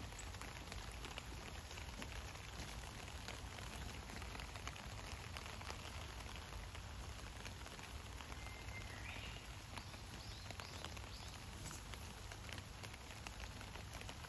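Light rain pattering steadily, a fine even patter of drops.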